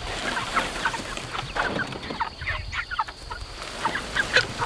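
A flock of Cornish cross meat chickens clucking, with many short overlapping calls.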